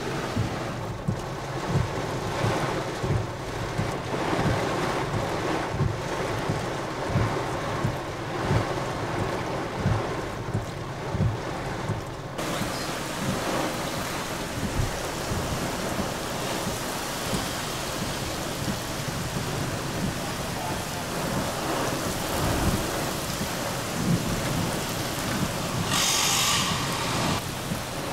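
Storm rain falling hard with wind. Low thumps come about once a second in the first half, the sound changes abruptly about halfway through, and a louder rush of hiss comes near the end.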